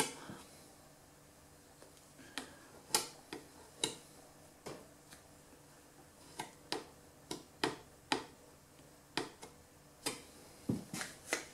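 Sharp, irregular clicks and taps of a metal putty knife knocking against a tub of glazing compound and a timber window frame as putty is scooped out and pressed into place.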